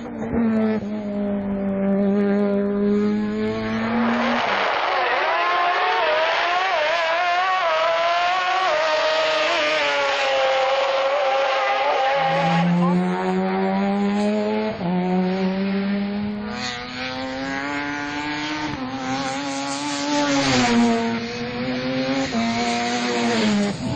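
Rotary-engined race cars, Mazda RX-7s, running hard, their exhaust notes rising and falling through the gears. There are several clips one after another, the pitch changing abruptly between them.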